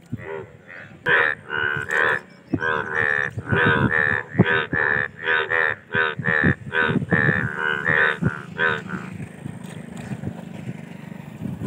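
Indian bullfrogs calling: a rapid run of short, loud calls, two or three a second, that stops about nine seconds in.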